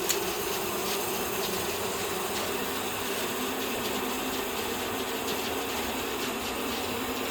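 Sky bike's cable pulley and gear mechanism running steadily, a mechanical whirr with light ratcheting ticks and a small click just after the start.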